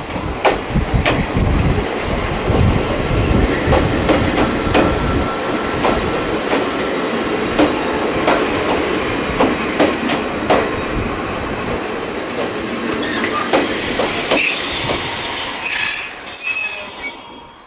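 Ichibata Electric Railway 3000 series electric train (ex-Nankai 21000 series) running past along the platform, its wheels clicking over rail joints over a low rumble. High-pitched squealing comes in near the end.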